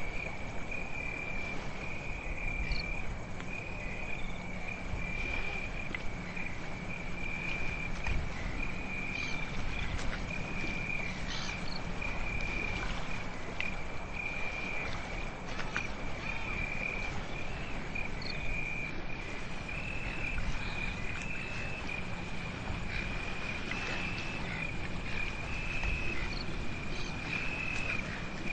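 Crickets trilling steadily at a high pitch in repeated trills about a second long, over a continuous low background rush.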